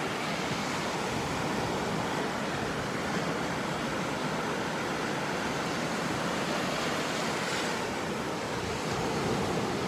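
Sea surf washing onto a sandy beach: a steady, even rush of breaking waves.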